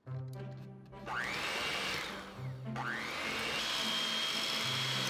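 Electric hand mixer beating cream cheese and whipping cream in a glass bowl. It starts about a second in with a rising motor whine over the whir of the beaters, dips briefly and winds up again, then runs steadily at a higher pitch. Background music plays throughout.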